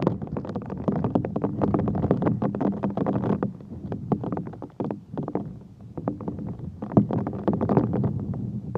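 Strong hurricane wind buffeting the microphone: an uneven, crackling rumble that swells and dips.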